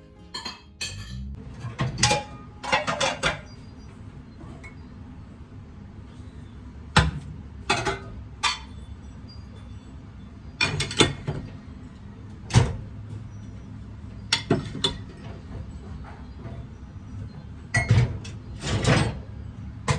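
Scattered knocks and clinks of dishes and cupboard doors being handled, a dozen or so separate strikes at irregular intervals over a steady low hum.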